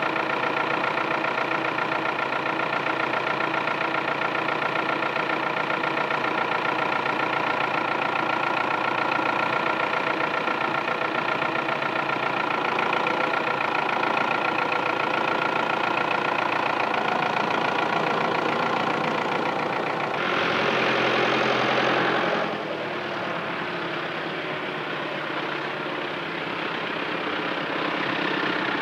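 Case tractor engine running steadily, with a brief louder hiss about two-thirds of the way through.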